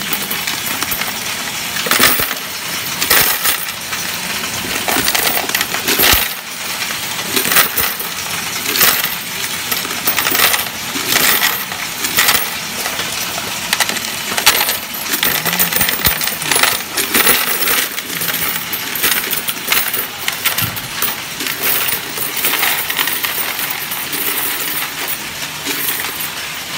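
Loose coins clattering and jingling as they are poured from a plastic jar into the tray of a coin-counting kiosk, a continuous rattle of many small metal impacts.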